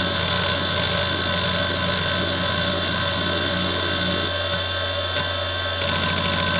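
Fujitsu MPB3021AT hard drive running a seek test: a steady spindle whine under the rapid chatter of the head actuator seeking back and forth. Past the middle the seek noise thins out for about a second and a half, with a couple of single clicks. Near the end a fast, even run of seeks starts.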